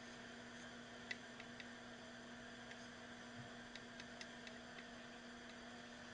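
Near silence: a steady low hum with several faint, short clicks scattered through, from a glue bottle and a brass tube being handled.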